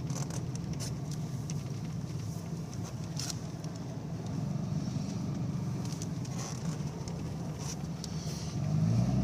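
A vehicle's engine running steadily at low revs while driving slowly on a snowy road, with scattered light clicks. Near the end the engine revs up and grows louder.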